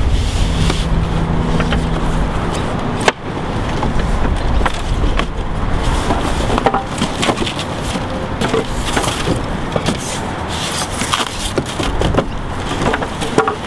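Outdoor noise with scattered knocks, clicks and rustles as a cardboard skylight box and the skylight's glazed sash are handled on a tiled roof. A low steady hum near the start stops abruptly about three seconds in.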